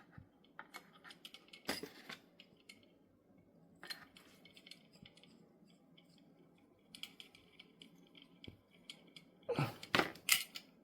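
Small steel revolver parts clicking and clinking as they are handled and fitted back together: scattered light taps, then a louder run of knocks near the end.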